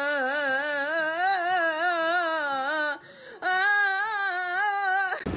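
Two long held vocal notes with a fast, even wobble in pitch, broken by a short pause about three seconds in.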